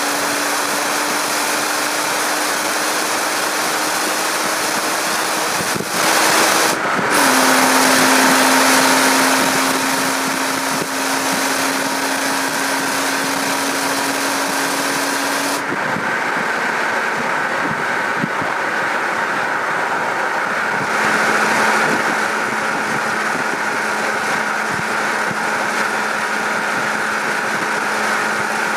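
BMW E92 325i's N53 three-litre straight-six through its stock rear silencer at motorway speed, mixed with steady wind and tyre noise. The engine note climbs slowly, steps down about seven seconds in as with an upshift, then holds steady, dropping a little lower again later on.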